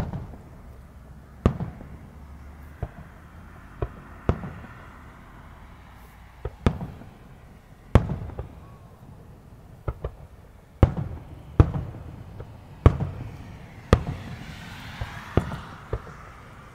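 Aerial firework shells bursting in a display: about fifteen sharp booms at irregular intervals, each trailing a low rumbling echo, with a stretch of hiss near the end.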